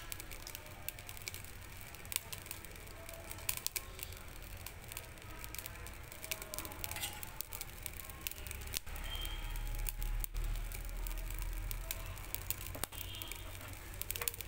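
Metal spoon spreading thick pizza sauce over dough on a plate: scattered small clicks and scrapes of the spoon with wet squishing, over a low rumble that grows louder in the middle.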